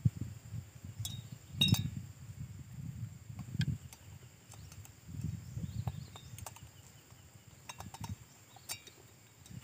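A hand tool clicking and clinking on the bolts of a chainsaw's replacement cylinder as they are screwed in, with scattered sharp ticks over low rumbling.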